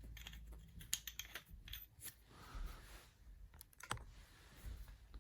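Light clicks and taps of small metal milling-machine accessories being handled, with one sharper click just under four seconds in.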